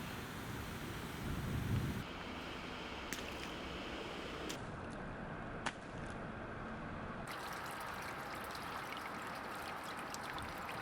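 Steady rain falling, an even hiss with a few sharp drips, and a brief low rumble near the start.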